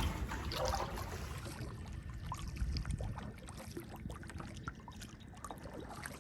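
Light splashing and trickling of water from kayak paddle strokes, with small drips and splashes scattered through, fading a little toward the end.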